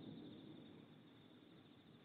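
Near silence: faint low background noise in the lull between distant firework bangs.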